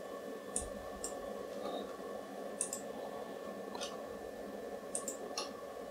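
Computer mouse clicking: about eight short, sharp clicks spread over several seconds, some in quick pairs, over a steady low hum.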